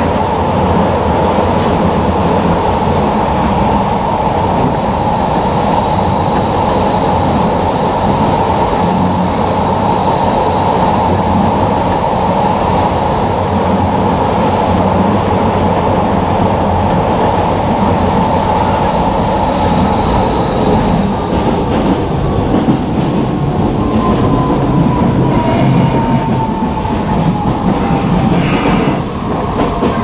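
Kyoto Municipal Subway Tozai Line train running, heard from inside the car: a steady rumble of wheels on the rails with a high motor whine over it. Over the last third the whine falls in pitch as the train slows for the next station.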